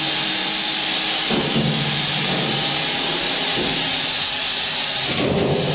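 Steady, loud hiss of air rushing inside an aluminum tank being pumped down to a partial vacuum by a vacuum cleaner and blower. The person inside takes it to mean a slight leak.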